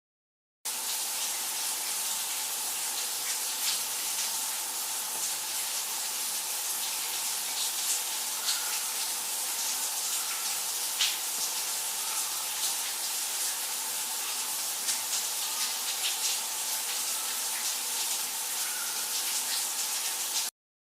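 Shower running: a steady hiss of spraying water with faint scattered droplet ticks. It starts abruptly about a second in and cuts off abruptly near the end.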